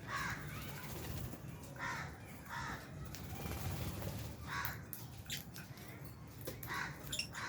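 A flock of lovebirds calling: short, harsh chirps repeated every half second to a second, with a few sharp clicks mixed in.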